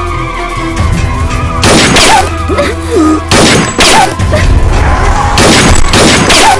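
Film gunshot sound effects: about five heavy blasts, each ringing on for about half a second, mostly in pairs, over dramatic background music.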